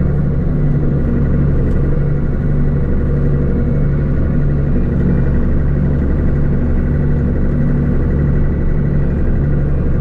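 Older John Deere combine running, heard from inside its cab: a steady engine drone with a regular low throb a little more than once a second.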